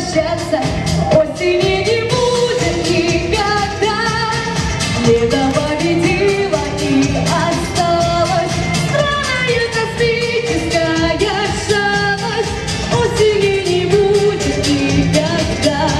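A pop song: a voice singing a gliding melody over a band accompaniment with a steady beat.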